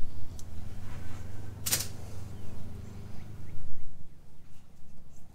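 Hands handling a rubber hose and its fitting at an engine-bay catch can: a few faint ticks and one short rustling noise about two seconds in, over a steady low hum.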